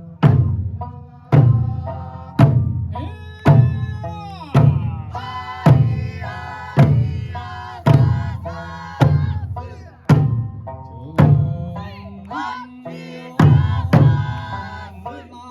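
Eisa drum dance music: taiko drums struck together in a steady beat, about one stroke a second, over singing.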